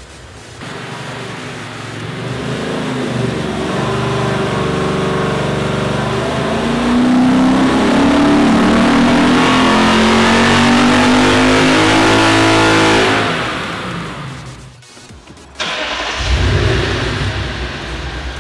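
Lexus IS F's 5.0-litre V8 making a full-throttle dyno pull with the air-conditioning compressor engaged and loading the engine. The revs build to a long loud stretch, then fall away about thirteen seconds in. After a brief drop-out, the engine is heard again near the end.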